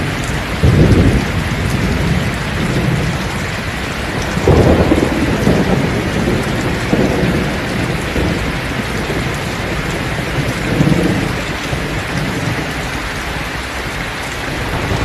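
Heavy rain pouring steadily, with thunder rumbling three times: a loud roll about a second in, another around four and a half seconds that trails on for a couple of seconds, and a shorter one near eleven seconds.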